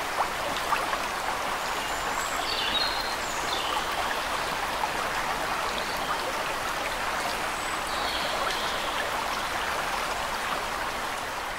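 Steady rush of flowing water, like a stream, with a few short high chirps about two to three seconds in and again around eight seconds.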